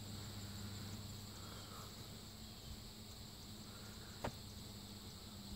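Faint outdoor background with a steady high hiss and a low hum, broken by one short tap a little over four seconds in.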